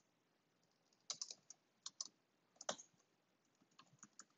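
Faint, scattered keystrokes on a computer keyboard as code is typed, starting about a second in.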